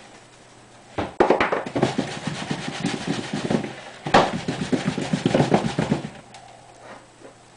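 Small container of dry spice mix shaken rapidly over a bowl of flour and breadcrumbs, in two bursts of about two to three seconds each, the second starting about four seconds in.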